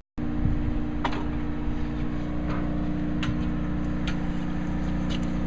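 Party fishing boat's engine running steadily with a low hum, with a few light knocks on deck.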